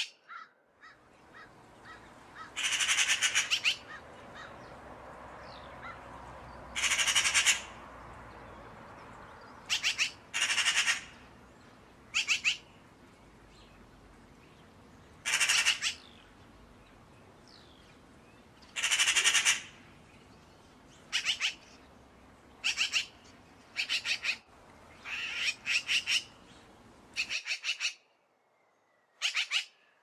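Eurasian magpies chattering: about fourteen short bursts of harsh, rapid rattling calls, each a fraction of a second to about a second long, over a steady background noise that stops abruptly near the end.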